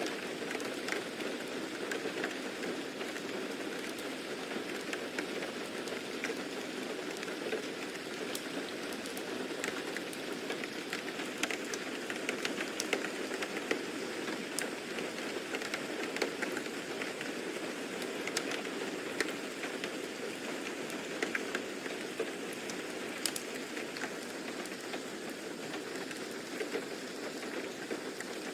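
Steady rain falling, an even hiss dotted with many small sharp drop ticks.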